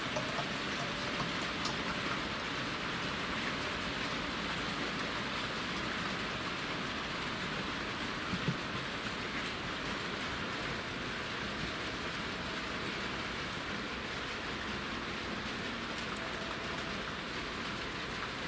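Steady rain falling on wet gravel.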